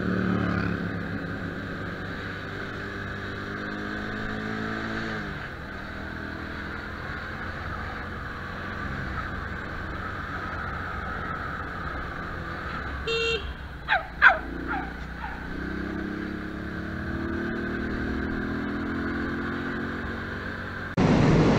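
Motorcycle engine running under the rider on a city street, its note falling as the bike slows over the first few seconds and rising again as it accelerates in the second half. A few brief, sharp, loud sounds about 13 to 14 seconds in.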